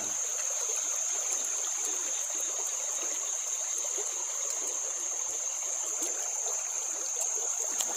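Shallow stream running over stones: a steady rush of water, with a steady high-pitched whine running unbroken over it.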